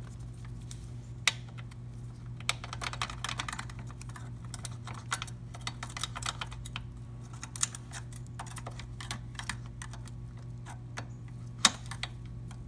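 Irregular small metal clicks and taps as a motorcycle footpeg, its return spring and pivot pin are handled with needle-nose pliers, with a sharper click about a second in and another near the end. A steady low hum runs underneath.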